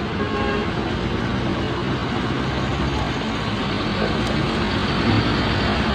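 Road traffic on a rain-wet road: vehicle engines and tyre noise running steadily, a little louder about five seconds in.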